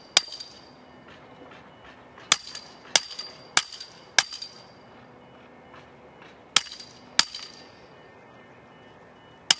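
Hand post pounder striking the top of a metal greenhouse corner post as it is driven into the ground: eight sharp metallic clangs, each with a short ring, coming as one hit, a run of four, a pair, then one more near the end.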